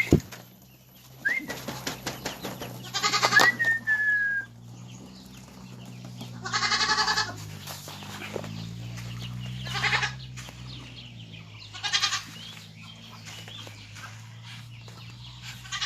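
Farm animal calls: about five loud, rough calls a few seconds apart, with a couple of short falling whistles in the first few seconds and a steady low hum underneath.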